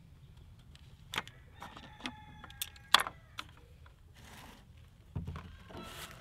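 Faint handling noise on a plastic chainsaw body: a few sharp plastic clicks, the loudest about three seconds in, with a brief squeak as a filler cap is worked open by hand, then some rustling.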